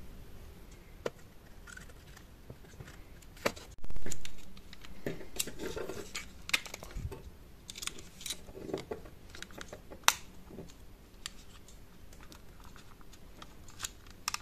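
Small clicks, scrapes and knocks of hands and a thin metal pry blade working at the plastic housing of a handheld audio recorder to open it, with one louder bump about four seconds in.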